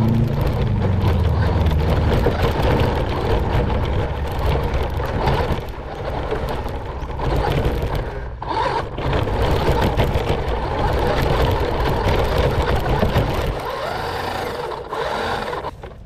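Radio-controlled car driving over a dirt track, heard from a camera mounted on the car: its motor and drivetrain whine over the rumble of the tyres on the ground, surging and easing several times. The sound grows quieter near the end.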